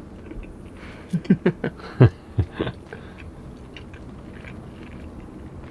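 A person eating pasta: slurping up a strand and chewing, with a quick run of short loud sounds between about one and three seconds in, each falling in pitch.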